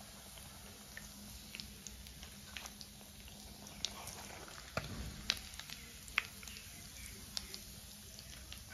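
Hot oil in an iron kadai crackling faintly as chops fry, with irregular small pops and clicks over a soft hiss. A faint steady low hum runs underneath.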